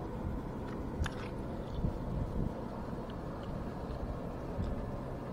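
Small crunches, clicks and scrapes of a hook being worked out of a fish's mouth with metal pliers, with a sharper click about a second in, over a steady low rumble.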